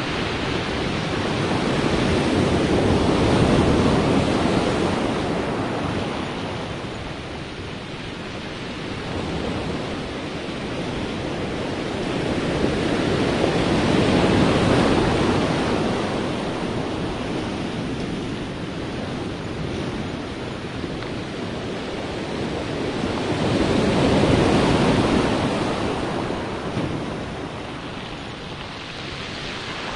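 Sea waves surging and breaking in a steady roar of surf, building to three swells about ten seconds apart, each rising and then ebbing away.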